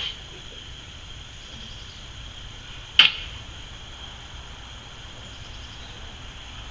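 A single sharp click about three seconds in, over a faint steady high-pitched hum.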